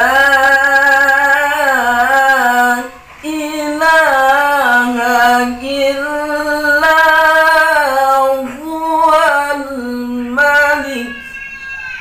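A man reciting the Qur'an in melodic tilawah style: one unaccompanied, high voice holding long, ornamented notes. There is a short breath pause about three seconds in, and the voice stops near the end, leaving a short echo.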